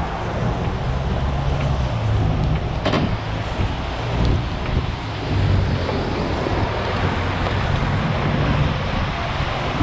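Steady rush of vehicle traffic with wind buffeting the microphone, and a single short knock about three seconds in.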